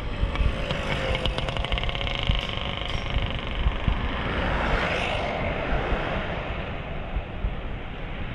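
Road traffic running close by, one vehicle passing loudly about five seconds in. Wind rumbles on the microphone.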